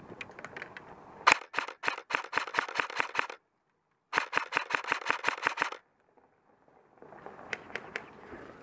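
Modified G&G Combat Machine airsoft electric rifle firing two full-auto bursts of about two seconds each, at roughly eight shots a second, to suppress the enemy. A few fainter single shots follow near the end.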